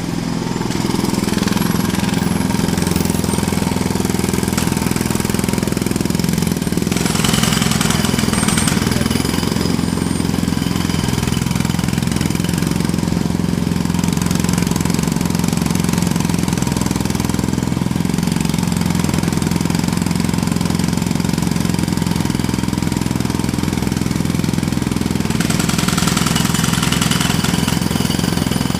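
Jackhammer running steadily and loudly: a fast, continuous hammering rattle with no pauses.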